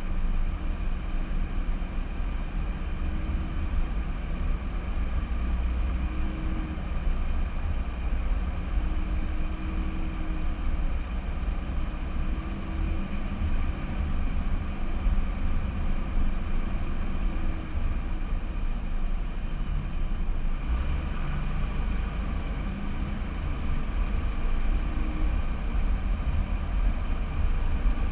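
Car driving, heard through a car-mounted GoPro: a steady low rumble of engine and road noise with a faint engine hum over it.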